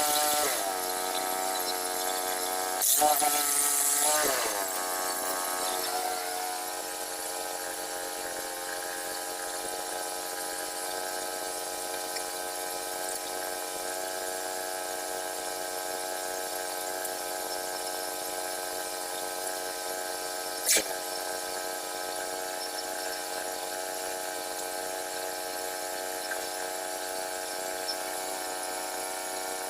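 HM122 sawmill's small gas engine slowing in pitch a few seconds in, then running steadily at idle. One sharp clank about two-thirds of the way through.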